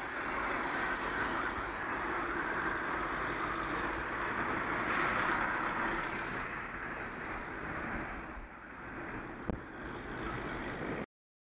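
Road traffic driving past close by, a steady rush of engines and tyres from cars and vans. There is a single sharp knock near the end, and then the sound cuts off abruptly.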